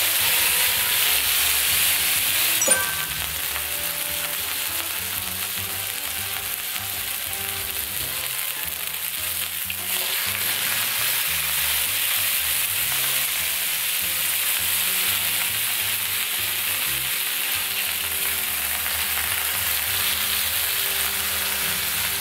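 A thick slab of beef sizzling steadily in hot oil on a griddle pan as its side sears. There is a single sharp click about three seconds in.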